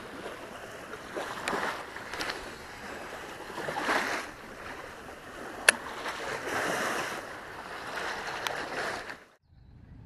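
Small lake waves splashing against the edge of a concrete boat ramp, swelling every couple of seconds, with wind noise on the microphone and a single sharp click a little before six seconds in. The sound drops away abruptly about nine seconds in to a much quieter shoreline.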